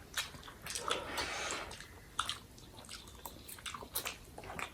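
Close-up chewing and mouth sounds of a person eating, with scattered small wet clicks and a brief soft noisy patch about a second in.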